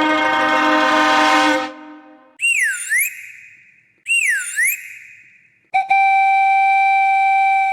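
A sequence of cartoon sound effects: a held buzzy note, then two swooping whistle glides that dip down and come back up, then a long steady whistle blast that begins near the end.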